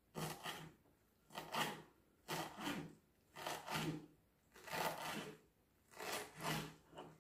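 Knife slicing blanched spinach on a wooden cutting board: six rasping cuts about a second apart, each a pair of quick back-and-forth strokes scraping the board.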